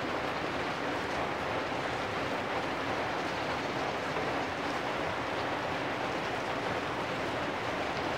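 Steady rain falling on corrugated metal roofs and a wet lane: an even, unbroken hiss with no distinct drops or knocks.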